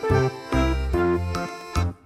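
Background music with short pitched notes over a low bass line; it cuts off right at the end.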